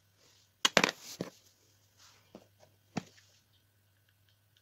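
Sharp clicks and knocks of small parts and a plastic bottle being handled on a hard tabletop: a quick cluster about a second in, then two single knocks later.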